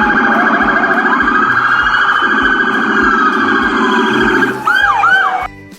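Police car siren wailing loudly, its pitch sweeping up and down, with quicker rise-and-fall sweeps near the end before it cuts off.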